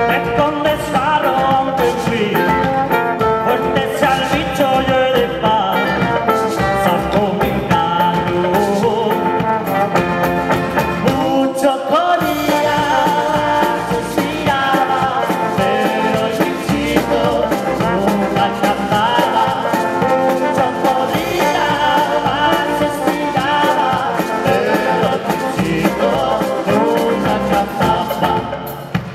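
Folk band playing a traditional Spanish tune live: acoustic and electric guitars, bass, trombone and a woodwind together. The music thins out briefly about twelve seconds in and dips in loudness near the end.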